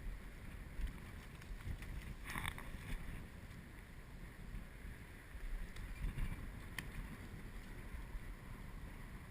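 Wind buffeting the microphone, a steady low rumble, with a brief higher rush of sound about two and a half seconds in and a single sharp click near seven seconds.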